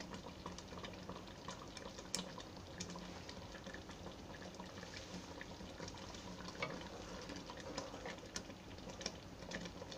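Mango pieces simmering in sugar syrup in a pan: faint, steady bubbling with small scattered pops. Near the end a wooden spatula stirs through the syrup.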